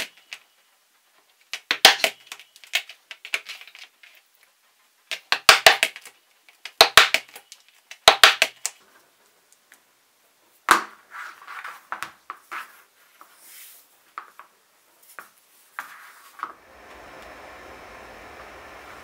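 Wooden maul striking a metal leather stamping tool on thick 7–8 oz leather, in quick clusters of several sharp taps every second or two. Softer, scattered knocks of tools being handled follow, and a faint steady hiss comes in near the end.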